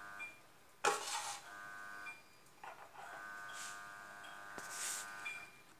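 A steady electrical buzz sounds twice, briefly and then for about two seconds. A sharp clatter comes about a second in, and a few short rustles follow.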